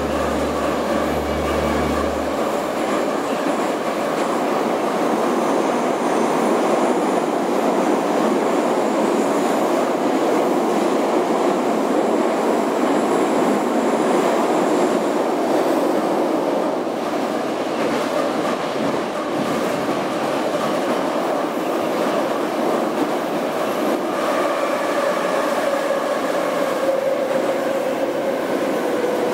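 Moscow metro train running through a tunnel, heard from inside the carriage: a steady rumble of wheels on rail, with a low hum that stops about two seconds in and a whine that drops in pitch near the end.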